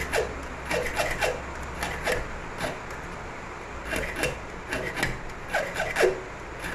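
Small hand file scraping a cut into a DA34 key blank clamped in a vise: about a dozen short, uneven strokes, roughly two a second, as a wafer cut is filed by hand.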